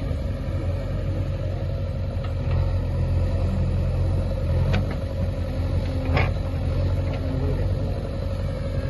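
JCB 3DX backhoe loader's diesel engine running steadily as the backhoe arm digs and pushes soil, with a steady thin tone over the rumble and two brief knocks, one about four and a half seconds in and one about six seconds in.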